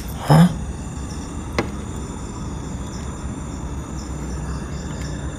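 Night insects such as crickets chirring steadily, with a low rumble on the microphone under them. A short loud sound breaks in about a third of a second in, and a faint click follows about a second later.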